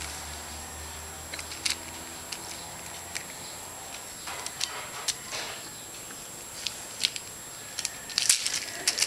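Scattered soft clicks and rustles of a toddler handling a small ball, over a steady background hiss. The clicks come sparsely at first, and the loudest cluster falls near the end.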